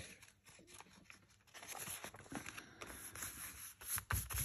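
Sheets of paper rustling and sliding as they are handled, with small crinkles and clicks. Near the end a soft thump as hands press the papers flat on the cutting mat.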